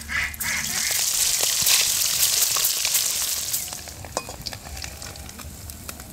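Small whole fish frying in hot oil in a wok, a steady sizzle with light scrapes and clicks of a metal spatula; the sizzle eases off a little after about four seconds.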